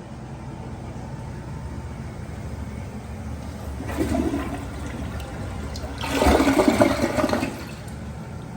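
Glacier Bay toilet flushing: a short rush of water about four seconds in, then a louder rush lasting about a second and a half that stops abruptly, over a steady low hum.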